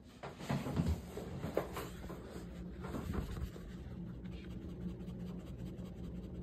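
Rustling and scraping close to the microphone, with a few sharp clicks, over the first three seconds or so, then settling into a steady hiss and low hum.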